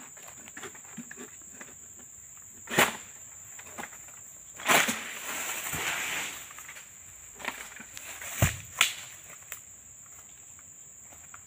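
Oil palm harvesting with a long-pole sickle (egrek): a sharp crack, then a sudden crash about five seconds in with a second or so of rustling as cut fronds fall through the leaves. A few seconds later come two heavy thuds as they land. A steady high insect whine runs underneath.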